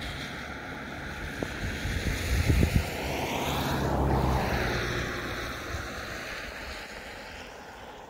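A passing vehicle: a rushing noise that swells to a peak about halfway through and then fades away, with a few low thumps of wind on the microphone a little before the peak.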